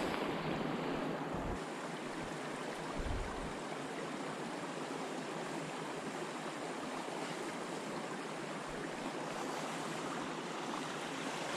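Steady rush of running water from a small creek, with a few low buffets of wind on the microphone in the first three seconds.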